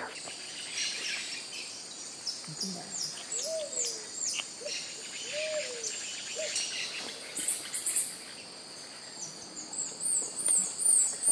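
Amazon rainforest birds calling over a steady drone of insects. Runs of quick, high, falling notes come in two spells and are loudest near the end, with a few short, lower notes in between.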